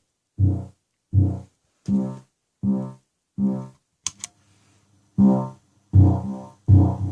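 Arturia MicroBrute analogue synthesizer playing a short, buzzy bass note over and over, about every three-quarters of a second, dry. A little after four seconds in there is a sharp click, and then the notes come back louder through the delay pedal, with a faint steady hum underneath them.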